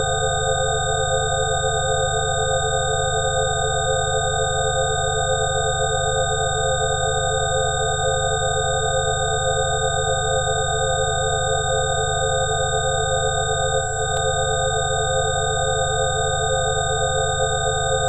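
A 'healing frequency' track of several steady electronic sine tones sounding together, a few of them wavering, over a low hum. A single brief click about fourteen seconds in.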